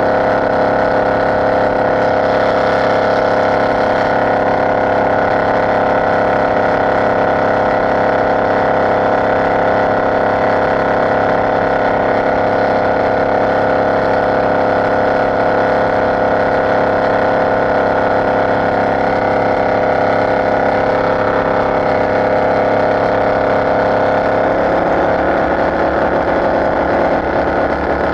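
Supercharged inboard engine of an open hot boat running steadily under way at speed. The note shifts a few seconds before the end.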